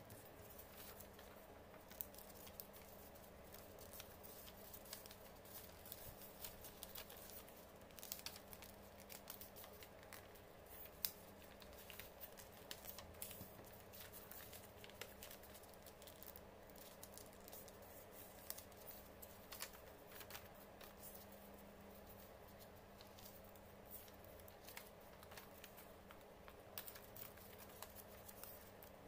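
Faint rustling and crinkling of a sheet of printer paper being folded and its creases pressed flat by hand, a scatter of small irregular crackles, over a faint steady hum.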